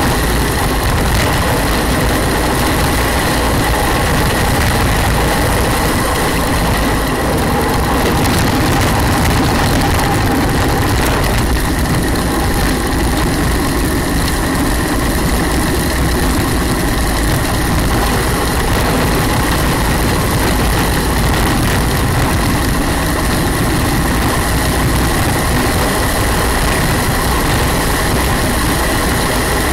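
Steady, loud rush of wind and tyre roar from a gravity racer rolling downhill on asphalt at speed, with a thin steady whine above it.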